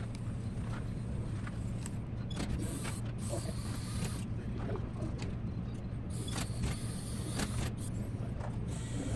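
Small robot modules' wheel motors and gears whirring and clicking in irregular bursts, over a steady low hum.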